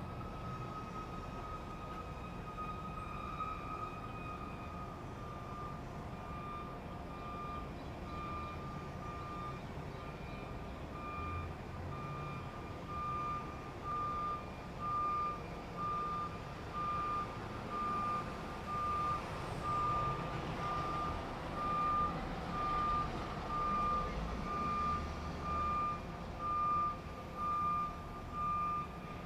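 Truck's reversing alarm beeping about once a second over the low running of its engine. The beeps start faint and grow much louder about halfway through.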